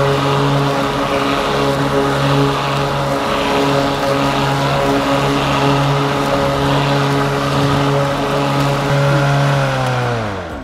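Lawn Works 40V battery-powered push mower running steadily, its electric motor and blade humming as it cuts grass. Near the end the motor winds down with a falling whine.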